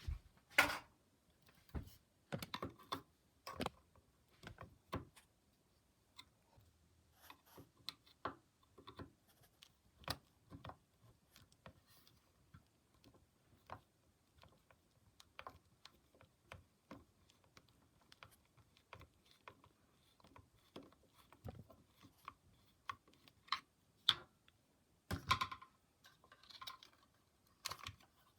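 Hand screwdriver backing out a screw from a sewing machine motor mount, with irregular small clicks and knocks of metal parts being handled and a short louder scrape near the end.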